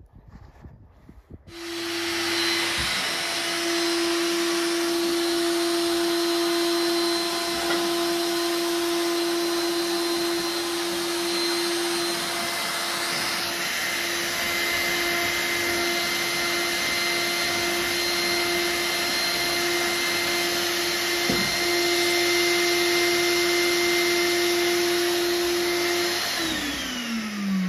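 Vacuum cleaner sucking soot out of a flue's cleanout hatch through its hose. It switches on about a second and a half in, runs with a steady whine, then is switched off near the end, its pitch falling as the motor winds down.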